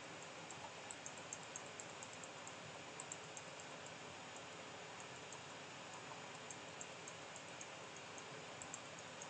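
Faint steady hiss of room tone with scattered light clicks at irregular intervals, from a computer mouse during digital painting.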